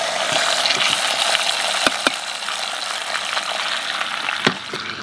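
Beef brisket searing in ghee in an Instant Pot on high sauté, sizzling steadily as the freshly flipped second side browns. A few sharp clicks of metal tongs against the stainless steel inner pot come about two seconds in and again near the end.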